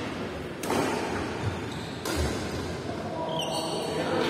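Badminton rackets hitting a shuttlecock: two sharp smacks about a second and a half apart, each with a short echo in a large hall.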